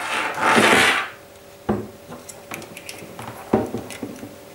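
Hands handling a hard drive and a SATA-to-USB adapter: about a second of rustling and scraping, then two short plastic-on-metal knocks as the adapter is fitted to the drive's connector, roughly two seconds apart.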